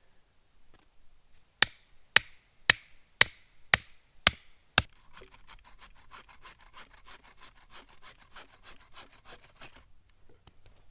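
Seven sharp knocks on wood, evenly spaced about half a second apart. Then about five seconds of quick back-and-forth sawing through wood with a hand saw, which stops shortly before the end.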